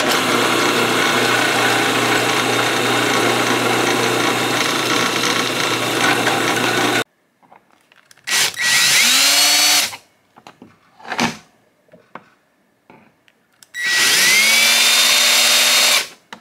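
A drill press runs steadily with its bit in the steel bar of a Dewalt trigger clamp, then cuts off suddenly about seven seconds in. A cordless drill follows in two short bursts of about two seconds each, its whine rising as it spins up, with a few small knocks between them.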